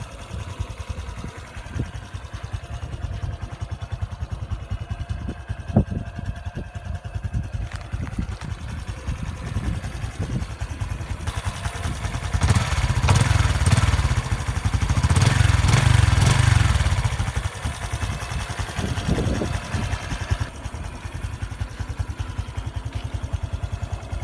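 Honda XRM125 Fi's single-cylinder four-stroke engine idling with a rapid, even exhaust pulse, revved up twice in the middle before settling back to idle.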